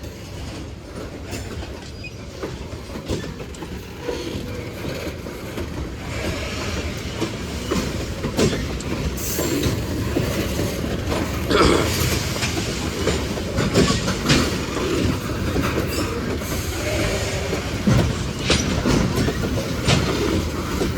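Freight cars of a Union Pacific manifest train, among them auto racks, rolling past close by, wheels clattering over the rail joints. The sound gets louder over the first few seconds, then the clatter runs on steadily.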